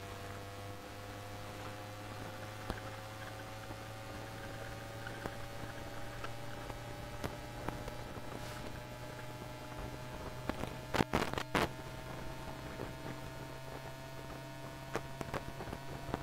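Pickup-coil recording of a 1996 Tube Stock's GEC Alsthom GTO VVVF traction inverter: two tones rising slowly in pitch as the train gathers speed, over a steady low hum. A brief burst of sharp clicks comes about eleven seconds in.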